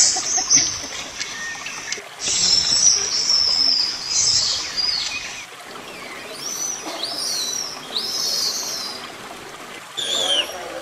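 Wildlife calls: a stretch of rough, hissing noise, then a run of short, high, arching chirps. The sound changes abruptly a few times, as if from spliced recordings.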